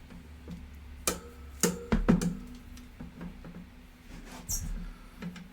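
A few separate sharp knocks and taps of tools and metal toaster parts being handled, some with a brief ringing, over a faint steady hum.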